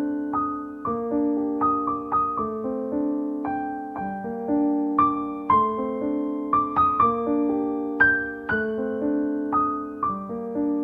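Background piano music: a gentle melody of single struck notes, each ringing out and fading.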